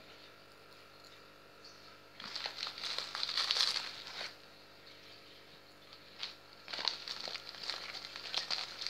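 Plastic packet of calcium grit rustling and crinkling in two stretches, from about two seconds in and again from about seven seconds, with a few light ticks in between.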